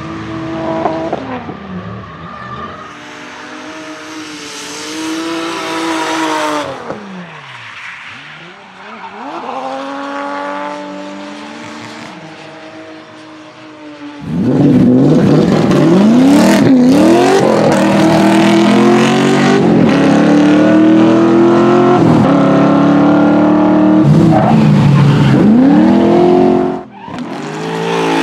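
Engine-swapped BMW E30 drift cars at full throttle, the engine revs repeatedly climbing and dropping as they slide, with tyre squeal. Moderate at first, then much louder from about halfway through.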